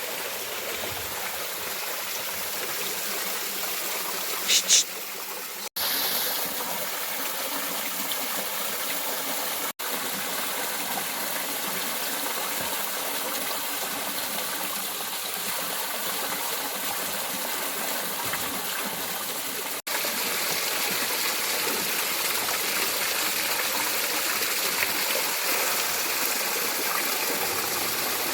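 Flowing stream water rushing with a steady hiss, with one brief, sharp high-pitched sound about four and a half seconds in. The sound drops out for an instant three times.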